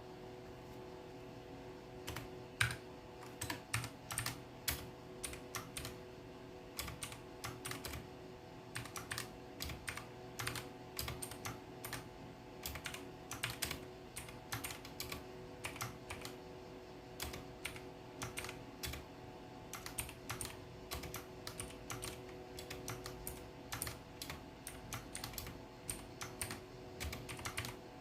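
Typing on a mechanical keyboard with blue switches: a run of irregular clicky keystrokes, starting about two seconds in, over a faint steady hum.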